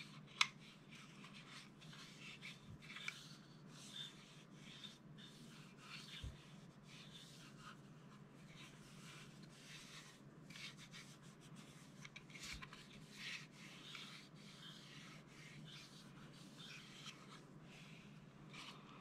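Faint rubbing of a cotton pad wiped over a Springfield XD(M) 9mm pistol's slide and frame, taking off excess oil. A few light knocks come from handling the pistol, the sharpest about half a second in.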